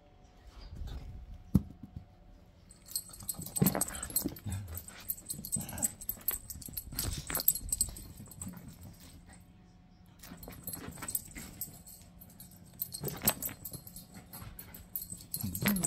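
Puppy barking and yipping several times, with a high jingling running under it for much of the time.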